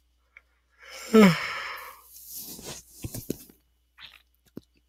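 A man's voiced sigh about a second in, its pitch falling, followed by breathy exhaling. Near the end come a few short soft knocks.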